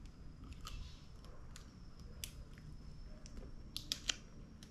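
Soft chewing of a chocolate bar, with light crinkles from its plastic wrapper being handled and a quick run of sharper crinkling ticks about four seconds in.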